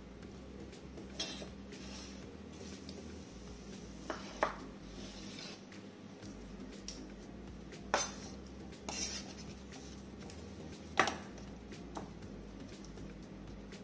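A chef's knife knocking on a bamboo cutting board as a lemon is cut into wedges, and the wedges dropped into a stainless steel saucepan: about seven separate sharp knocks, a few seconds apart.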